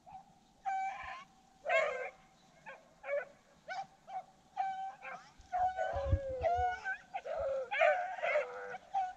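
Rabbit hounds baying on a rabbit's trail, a sign they are following its scent. Their short calls come about a second apart at first, then crowd together and overlap from about halfway in.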